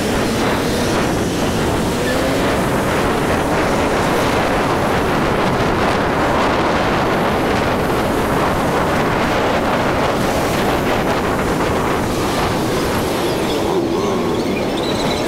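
Steady rush of wind and road noise from a moving motorcycle, with the engine note rising and falling now and then.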